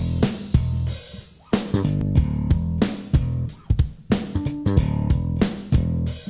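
Background music: bass guitar and guitar over a steady drum beat.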